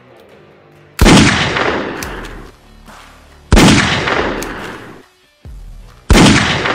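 Three rifle gunshot sound effects, each a sharp crack with a low boom and a long echoing tail, about two and a half seconds apart, over soft background music.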